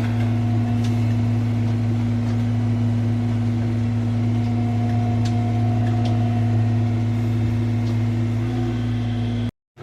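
Mini excavator's diesel engine running steadily at a constant speed while the machine is driven. The sound cuts off suddenly just before the end.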